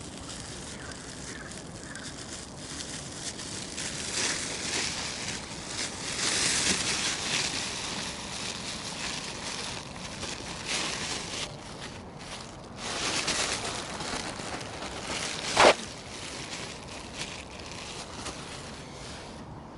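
Rustling and crinkling, as of plastic bags or food packaging being handled, in uneven bursts, with one sharp click about fifteen seconds in.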